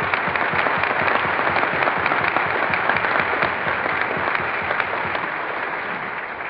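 Audience applauding: a dense, sustained clatter of clapping that is already at full strength and slowly fades toward the end, with the high end cut off as on an old radio broadcast recording.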